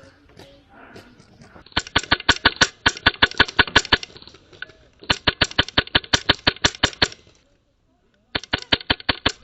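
HPA airsoft rifle firing on full auto: three long bursts of rapid, evenly spaced shots, the first about two seconds in, the second about five seconds in and the third near the end.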